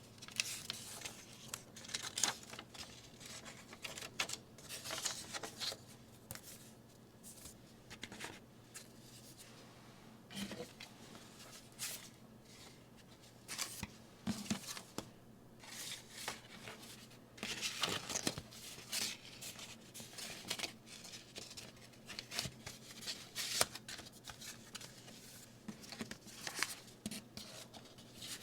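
Hands handling a 7-inch vinyl single and its sleeve and packaging: irregular rustling, sliding and crinkling, with a few light taps.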